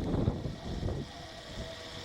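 Wind buffeting the microphone for about the first second, then faint steady tones of an outdoor warning siren sounding from the loudspeaker mast of the town's fire and disaster radio, held at one pitch.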